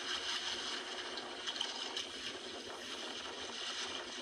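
Water splashing and sloshing in a basin as a live caught fish is handled in it, over a steady wash of seawater on shoreline rocks.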